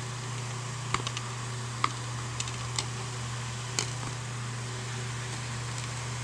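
Plastic DVD case being opened by hand: a handful of sharp clicks and taps between about one and four seconds in, over a steady low hum.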